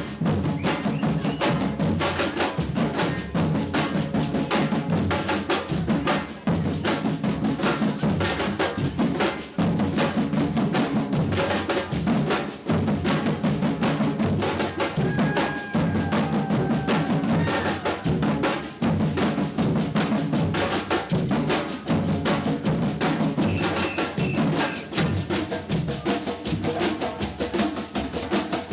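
Samba percussion band playing a fast, driving drum rhythm, with deep bass drums under snare drums and sharp wood-block-like clicks.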